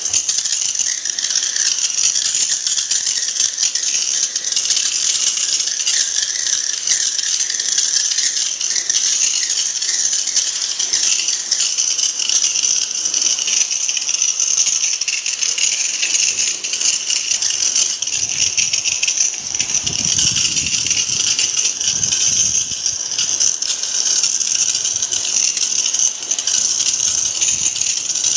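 Pressure-washer water jet spraying onto an air conditioner unit during cleaning: a steady hiss of spray with water splattering off the housing and floor. The splashing turns heavier for a couple of seconds about two-thirds of the way through.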